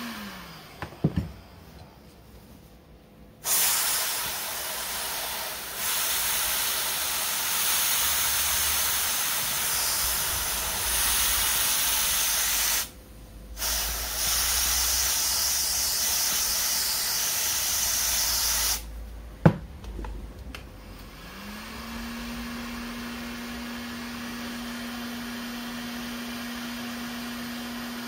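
A heat gun's steady whirr winds down as it is switched off, followed by a couple of clicks. Then an aerosol cold spray hisses in two long blasts onto a GY6 50cc crankshaft, chilling it so the heated bearing will slide on. After a click, the heat gun whirrs back up and runs steadily.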